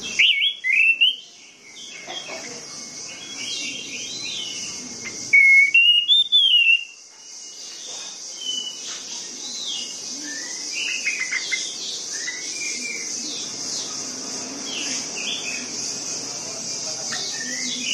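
Orange-headed thrush singing a string of rapid, varied whistled phrases, loudest just after the start and again around six seconds, with quieter phrases between, over a steady high hiss.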